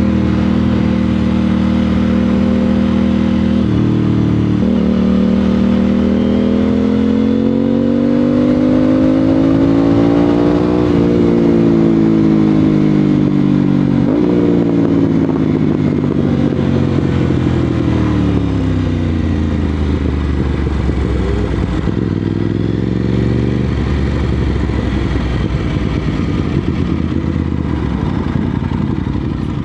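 Aprilia RS 660 parallel-twin engine through an SC-Project SC1-R exhaust, ridden hard: the revs hold steady, then climb through the gears with sharp shifts about 4, 11 and 14 seconds in, fall away as the bike slows, and settle low near the end.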